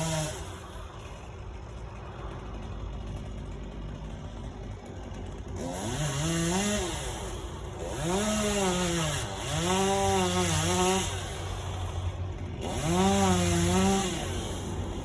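Chainsaw running at a low idle, then revved up four times, the pitch rising and falling with each pull of the throttle as it cuts.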